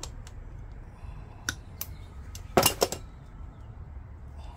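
Motorcycle roller drive chain and its connecting link clinking as they are handled: a few light metallic clicks, then a short cluster of louder clanks about two and a half seconds in.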